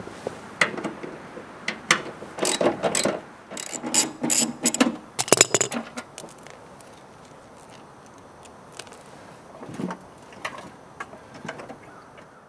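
Ratchet wrench clicking in quick runs, with metallic clinks, as the bolts holding the snowblower's front and rear halves together are undone. The clicking stops about six seconds in, leaving a few soft knocks.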